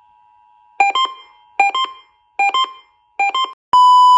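Electronic alert tones. A faint steady two-tone signal like the EAS attention tone sounds first; four quick clusters of beeps break in about every 0.8 s, and a loud steady beep comes in near the end.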